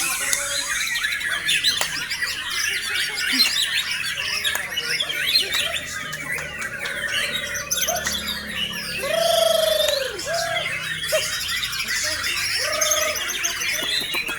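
White-rumped shama (murai batu) song: a dense, fast stream of varied chirps, trills and squawks, with a few lower, slower whistled notes about nine and thirteen seconds in.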